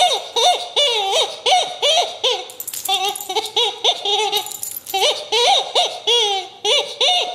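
Blue clucking-chicken dog toy squawking over and over as a wire fox terrier bites and squeezes it, about three short bent clucks a second, with a few longer held squawks in the middle.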